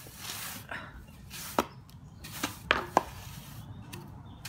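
Stiff hand brush sweeping dust and grit off concrete block surfaces in short scratchy strokes, with a few sharp knocks around the middle.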